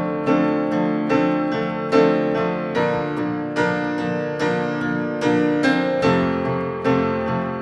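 Solo piano music: a recorded song's piano part playing chords struck in a steady, slow pulse, about one every two-thirds of a second, each ringing and fading into the next, with no singing.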